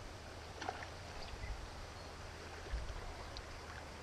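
Outdoor ambience: a low rumble of wind on the microphone, with a few faint scattered ticks.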